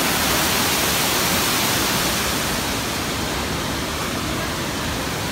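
Steady rush of water pouring over a waterfall.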